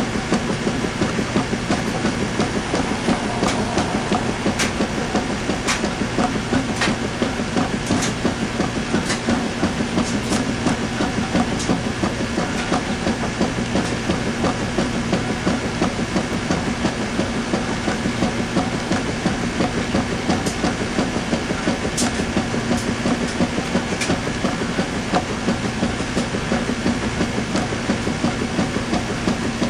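Washing machine running with a load of towels: a steady motor hum under fast, continuous rattling from the turning drum, with a few sharp clicks.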